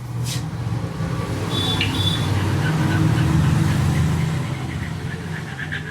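A motor vehicle's engine running, growing louder to a peak about three to four seconds in and then easing, with a short high squeal about two seconds in.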